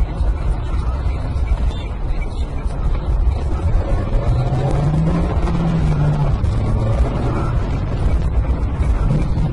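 Car engine and road noise heard from inside a slow-moving car, with the engine note rising about four seconds in as the car speeds up again.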